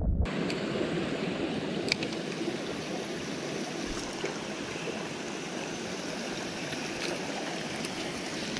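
Mountain stream running steadily, with a few faint ticks. A low wind rumble on the microphone cuts off just after it starts.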